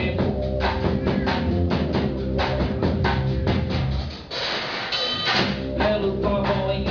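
Rock band playing live, driven by a drum kit with bass drum and snare over sustained bass and guitar notes. A little past four seconds in the band drops out briefly, then comes back in.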